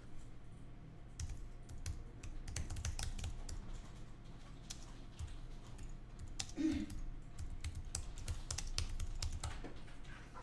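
Typing on a computer keyboard: a run of irregular key clicks, with one brief low hum a little past halfway.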